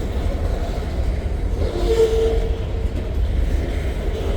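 Freight train rolling past at speed: a steady low rumble of the cars on the rails, with a brief two-note tone about halfway through.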